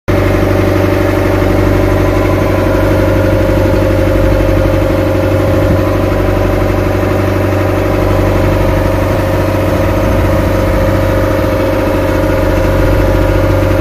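A boat's engine running steadily at a constant speed while the boat is underway across the water.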